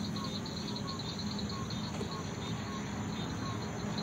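Night insect chorus: crickets trilling in quick pulses, with a short chirp repeating about twice a second and a low steady hum underneath.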